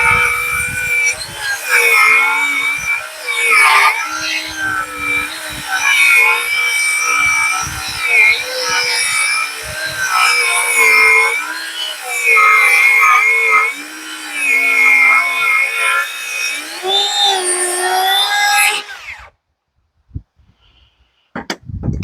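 Handheld circular saw ripping a rough-sawn board lengthwise along an edge guide, its motor whine dipping and recovering as it works through the cut. The saw stops abruptly about 19 seconds in.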